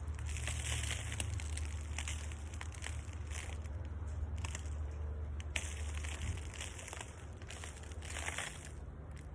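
Irregular crunching and crinkling, like soil and dry vines being handled while digging up sweet potatoes, with a few sharp snaps. A steady low hum runs underneath and eases off in the second half.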